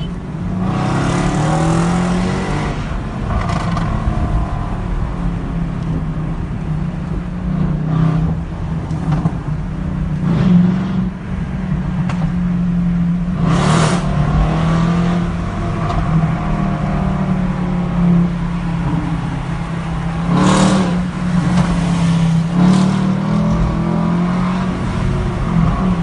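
Mercedes C63 AMG Black Series 6.2-litre V8 accelerating hard several times, heard from inside a car following it, over a steady low engine drone. The revs climb about a second in, and there are loud bursts around halfway and twice near the end.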